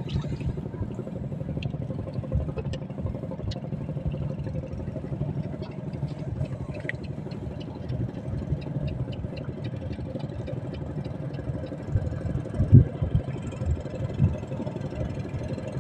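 A small engine running steadily at a low idle, with a couple of short knocks near the end.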